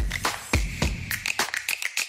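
Background music with a steady beat: deep kick drums, the first two about half a second apart near the start, with sharp clicking percussion in between.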